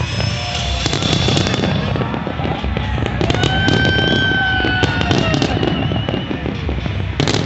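Fireworks bursting and crackling continuously, a dense run of rapid pops, with a held high tone about halfway through.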